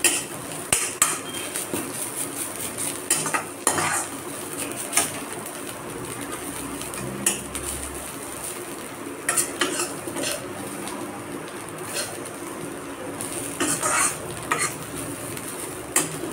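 A metal ladle scrapes and clinks irregularly against a metal kadhai as chopped dried gundruk (fermented mustard greens) is stirred and roasted in a little oil. A faint steady sizzle runs underneath.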